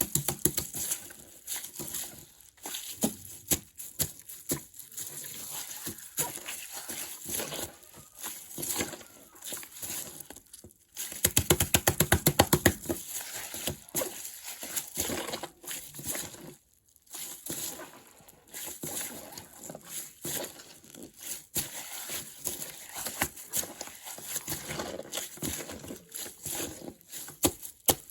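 Plastic bag with water in it crinkling and rustling in irregular crackles, with a fast rattling run of crackles about eleven seconds in, the loudest part.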